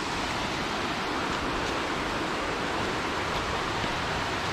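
Steady rush of falling water from a waterfall or mountain torrent, a continuous even roar that swells up over the first second.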